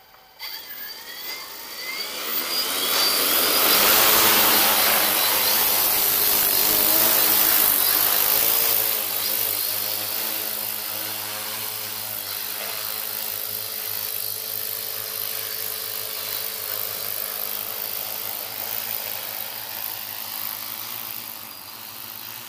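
Large multirotor agricultural spray drone carrying a full 10-litre tank: its motors spin up with a rising whine, then the propellers run loud as it lifts off under load. After about nine seconds the sound settles to a steadier, somewhat quieter propeller hum.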